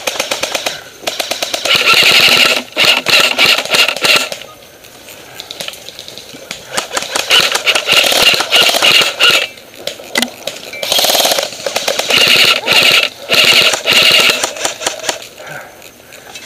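AK-style airsoft electric rifle firing on full auto in several bursts of one to three seconds, each a rapid string of shots with a high whine running under it.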